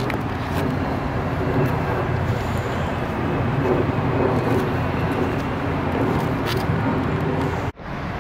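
Steady rumble of a motor vehicle running, with a faint steady hum in it. It drops out abruptly for a moment near the end.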